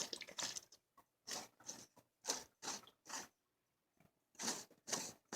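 Faint, short irregular noises, about eight of them with quiet gaps between, as the oil filter cartridge is drawn out of the Mercedes W210's filter housing and the oil in the housing drains down into the engine.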